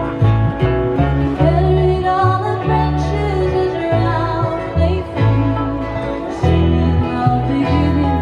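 A string band playing a bluegrass-style tune, with guitar and banjo picking over a line of bass notes that change about every half second to a second.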